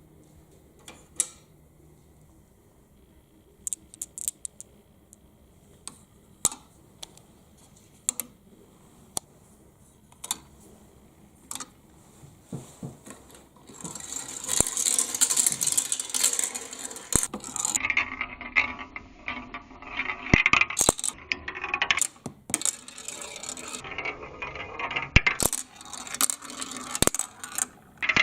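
Balls rolling and knocking down a marble run track: scattered single clicks for the first half, then from about halfway a dense, continuous clatter of many balls with a steady hiss under it.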